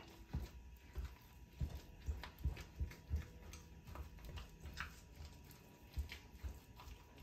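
A silicone spatula stirring a thick, moist meatloaf mixture in a glass bowl on a wooden cutting board: irregular soft thumps and clicks, a few a second.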